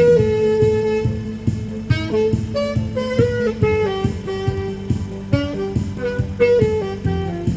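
Saxophone playing a melody over instrumental accompaniment with a steady beat: a long held note at the start, then a run of shorter notes moving up and down.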